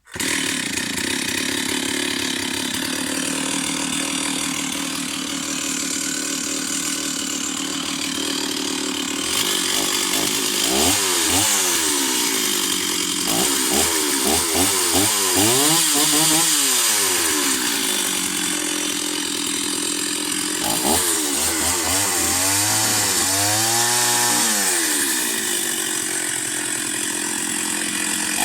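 Stihl 038 two-stroke chainsaw running at high speed. From about ten seconds in, its engine speed swings up and down again and again.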